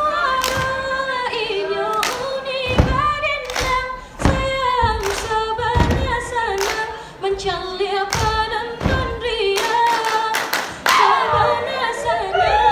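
Minangkabau dance song: a voice sings a long, wavering melody unaccompanied, while the dancers' irregular sharp slaps and claps and the thuds of their feet on the stage cut across it. From about eleven seconds in, many voices shout and cheer over the singing.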